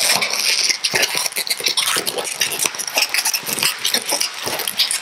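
Latex twisting balloons squeaking and rubbing against each other as one pinch twist is wrapped into another: a dense, irregular run of short squeaks and rubs.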